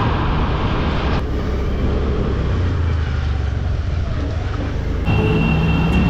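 Riding on a Honda scooter: steady wind rush on the microphone over low engine and road noise. The sound changes abruptly at about one second and again at about five seconds, and a few steady tones come in near the end.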